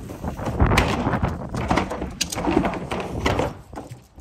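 Plastic wheeled trash bin being handled and moved, giving a run of irregular knocks and rattles over a low rumble, fading out near the end.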